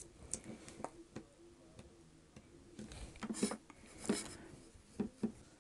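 Faint scattered clicks and taps from lip products and a handheld mirror being handled while lip colour is applied, with a few brief soft rustles a few seconds in.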